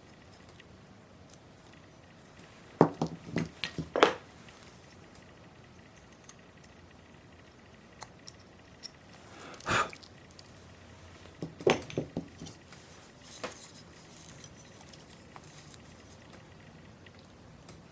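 Woodcarving hand tools clicking and clinking as they are handled and set against the work surface. The clicks come in two short clusters, about three seconds in and again around twelve seconds, with a brief scrape between them.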